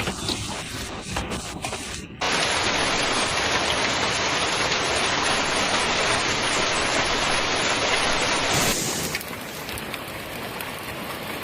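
Heavy storm precipitation pelting down in a dense, steady hiss. A few sharp hits stand out in the first two seconds. The sound jumps louder about two seconds in and drops back about eight seconds in, as clips change.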